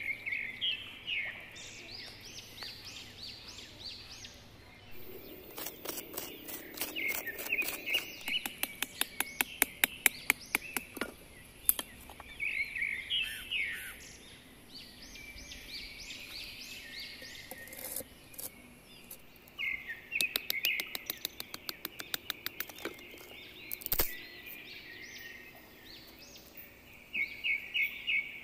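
Birds singing in repeated short phrases of rapid high chirps. Two runs of sharp, quick taps, about four a second, come about six seconds in and again past the middle, and are louder than the birdsong.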